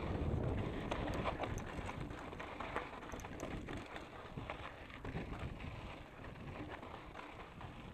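Specialized Enduro Comp 650b mountain bike rolling over a loose dirt and gravel track, its tyres crunching on stones with irregular clattering and rattling from the bike. Wind rushes on the microphone at first and eases off during the first couple of seconds.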